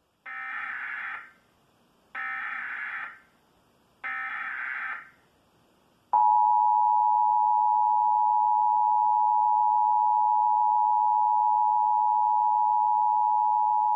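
Emergency Alert System broadcast: three buzzy digital data bursts (the SAME header), each about a second long and two seconds apart, then the two-tone EAS attention signal, a loud steady alert tone held for about eight seconds that cuts off abruptly. Together they open a Required Monthly Test of the alert system.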